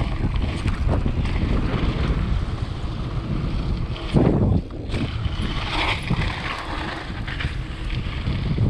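Mountain bike ridden fast down a dry dirt trail: tyres rumbling and crunching over the ground with short rattling knocks from the bike, and wind buffeting the microphone. A louder thump comes about four seconds in.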